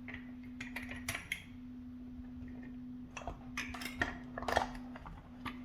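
Scattered light metallic clinks and clicks as a lock and a pinning tray are handled, in irregular clusters rather than a steady rhythm.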